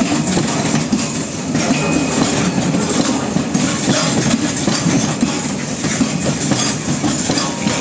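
Moving train with its wheels clattering on the track in a steady clickety-clack over a continuous rumble.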